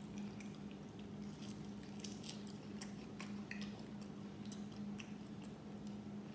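Faint chewing with scattered small wet mouth clicks and smacks, over a steady low electrical hum.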